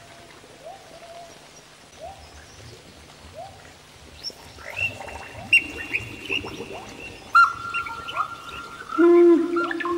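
Animal-like calls in an ambient jungle soundscape. Short rising chirps repeat about every three-quarters of a second. From about four seconds in, overlapping held calls at several pitches join them, each swooping up at its start and growing louder toward the end.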